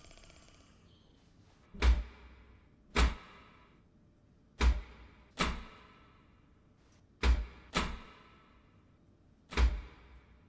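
A series of seven loud, heavy booming thuds, coming roughly in pairs a second or two apart, each with a short ringing tail, like heavy pounding or a door being hammered.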